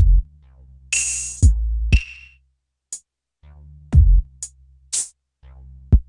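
Sparse electronic drum-machine beat: deep kick drums with long low tails, noisy snare hits and short hi-hat ticks, playing through a software exciter plugin whose single knob is being turned up.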